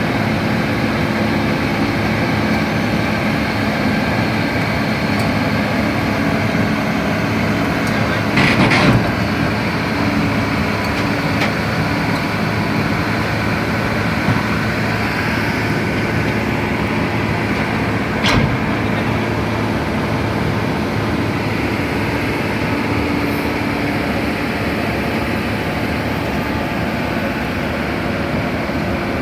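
Excavator's diesel engine running steadily, with a couple of louder knocks.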